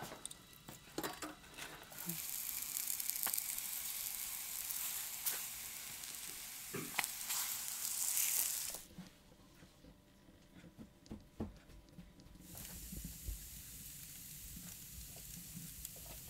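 Frying sizzle of raw dough pieces being laid into a hot cast-iron frying pan, a steady hiss that cuts off suddenly about nine seconds in. A few clicks follow, then a fainter hiss returns near the end.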